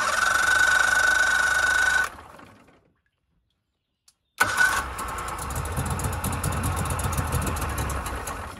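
Electric starter cranking a 40 hp three-cylinder Mercury outboard with a steady whine for about two seconds, then stopping. A few seconds later a short second crank, and the engine catches and runs steadily: its first start after a new fuel pump was fitted and primed.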